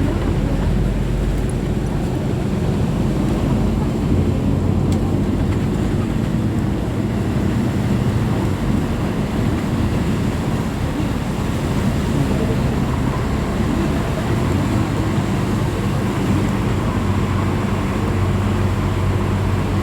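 Inside a moving commuter train carriage: steady running noise with a low rumble and hum, and a faint high steady whine.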